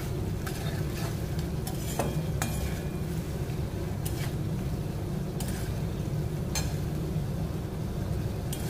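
Metal spatula stirring and scraping through onion-tomato masala frying in a kadai, over a steady sizzle, with a few sharp taps of the spatula against the pan.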